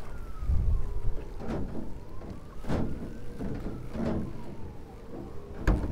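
A distant emergency siren wailing slowly up and down over a low rumble, with four short sharp knocks about a second and a half, two and three-quarter, four and five and three-quarter seconds in.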